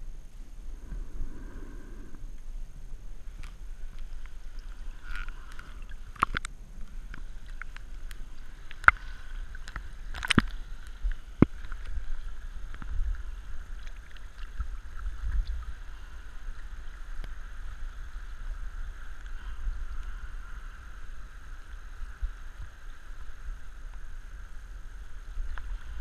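Muffled water sloshing and low rumbling around a GoPro Hero 3 worn under a scuba diver's hood as the diver rises and floats at the surface, with a few sharp clicks in the middle.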